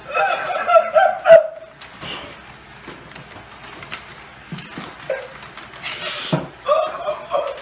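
High-pitched, drawn-out whimpering cries from an emotional person, with a rustle of paper about six seconds in.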